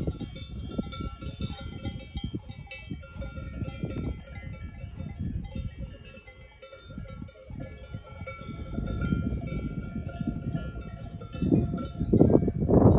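Cowbells on cattle clanking and ringing irregularly, several bells at different pitches, over a low rumbling noise. A louder rush of noise comes in near the end.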